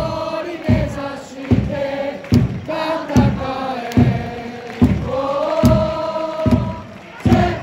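Football supporters chanting in unison over a steady bass drum beat of about one stroke every 0.8 s, with one long held note in the second half.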